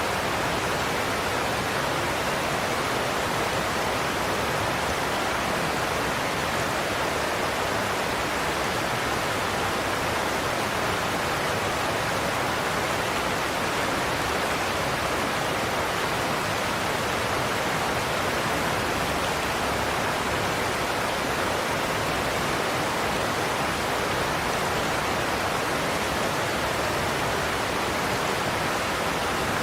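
Godafoss waterfall: a large volume of water cascading over the falls in a steady roar of rushing water, even and unchanging throughout, with no separate splashes standing out.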